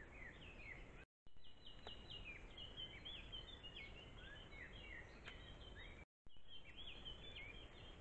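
A songbird singing: quick runs of high chirps and short downslurred whistles over a steady hiss. The sound cuts out completely for a moment twice, about a second in and about six seconds in.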